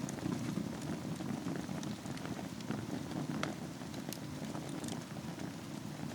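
Wood fire burning on glowing embers in a fireplace: a steady low rush of flame with scattered sharp crackles and pops, a few each second.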